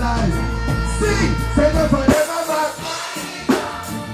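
Live reggae band music with a man singing into a microphone. About halfway through the bass drops out, leaving a sparser backing under the voice, and the full band comes back in right at the end.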